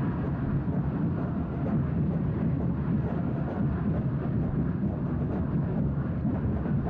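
Large stadium crowd of football supporters making a steady roar, with no single voice standing out.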